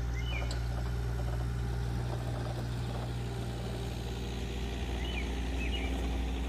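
Steady low hum of an engine running at idle, with a few short high chirps near the start and again about five seconds in.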